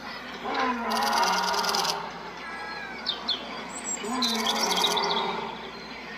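A lion roaring in two drawn-out bouts, with small birds chirping between them.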